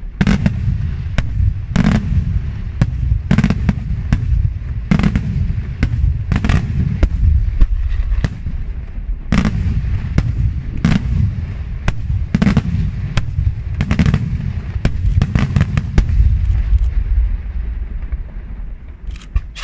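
Daytime aerial fireworks display: an irregular barrage of sharp bangs from shells bursting in the air, several a second, over a continuous low rumble.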